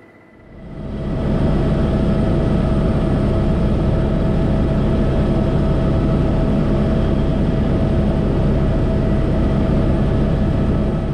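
Eurocopter helicopter's turbine and rotor running steadily, a loud even drone with a low hum and a steady whine. It fades in about half a second in and fades out near the end.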